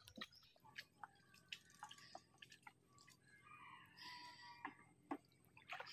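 Near silence: faint outdoor ambience with scattered small clicks and drips, and a soft hiss a little after four seconds.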